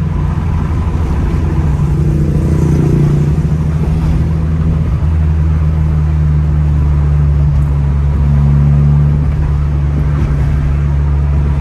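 Car engine running steadily with tyre and road noise, heard from inside the cabin. The engine note lifts briefly about eight seconds in.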